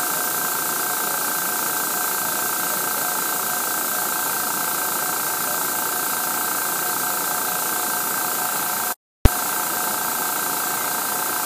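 Mini airbrush compressor running steadily with a constant motor whine while air hisses out of the fully opened outlet. The tank pressure is gradually dropping as the air is used. The sound cuts out for a moment about nine seconds in, then comes back with a sharp click.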